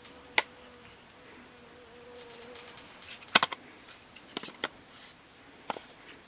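Sharp clicks and knocks of hard plastic washing-machine parts being pried and handled: a single click about half a second in, a loud cluster of clicks about halfway through, then a few lighter ones. A faint steady buzz underlies the first half.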